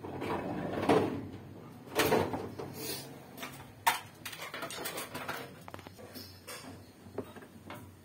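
Plastic parts of a top-load washing machine being handled and shifted: irregular scraping and knocking, loudest about one and two seconds in, with a sharp click near the middle.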